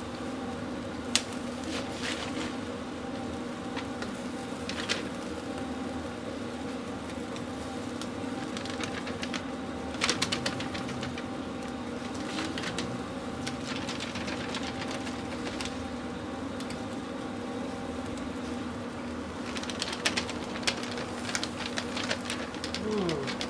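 Metal barbecue tongs clicking and clattering against the grate of a charcoal kettle grill as pieces of meat are turned, over a steady low mechanical hum. The clicks come in scattered bunches, busiest around ten seconds in and again near the end.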